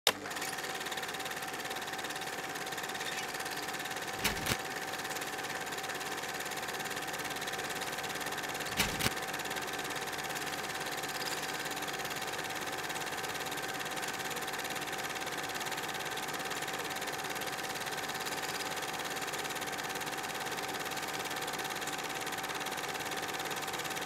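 Film projector running with a steady mechanical whirr and a constant hum, with two short clicks about four and nine seconds in.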